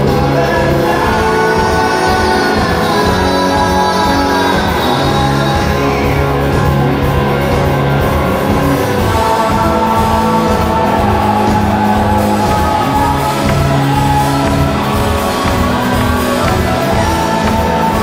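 Rock band playing live: electric guitar and drum kit with a male voice singing, heard from among the audience in a large hall.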